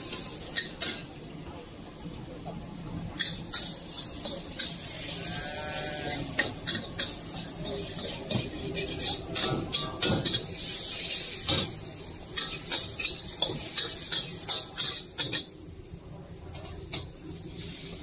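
Metal spatula scraping and clanking against a wok as noodles and bean sprouts are stir-fried over high heat. Many quick clicks and scrapes sit over a steady hiss of sizzling.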